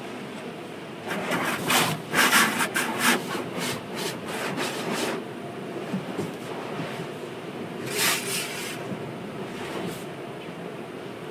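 Automatic tunnel car wash running, heard from inside a car: a steady low machinery rumble with bursts of hissing, rasping wash noise, a cluster from about one to five seconds in and another around eight seconds.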